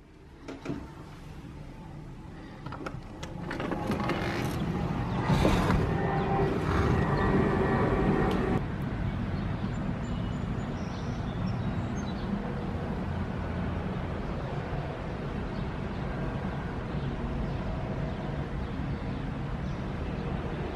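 Outdoor ambience: a steady low hum of road traffic with wind on the microphone. A few knocks and a louder rustling stretch come in the first several seconds, before it settles into an even hiss.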